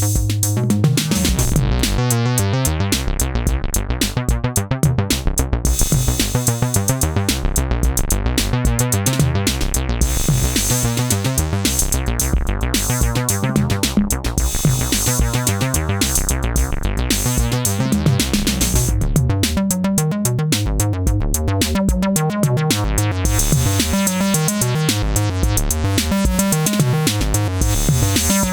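Electronic synthesizer bass line over a drum-machine beat, with the bass tone sweeping as its filter opens and closes; the sound of the part changes about two-thirds of the way through.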